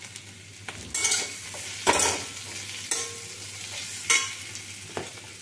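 A steel spatula scraping and clinking against an aluminium kadai roughly once a second as boiled potatoes are stirred, over a steady sizzle of the potatoes frying in oil and spices.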